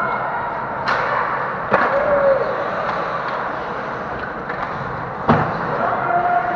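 Ice hockey play close to the goal: sharp clacks and thuds of puck, sticks and players against the boards and net, the loudest about five seconds in, over steady rink noise.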